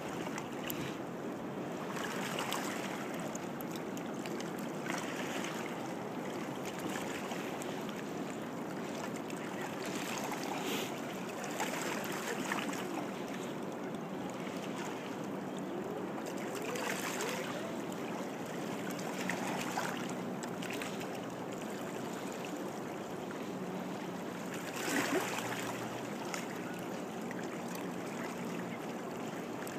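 Steady rush of the Niagara River's moving water along a rocky shore, with a few brief louder scuffs, the loudest near the end.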